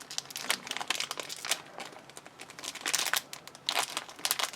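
Thin plastic blind-bag packaging crinkling as it is handled, in quick irregular crackles that are busiest about three to four seconds in.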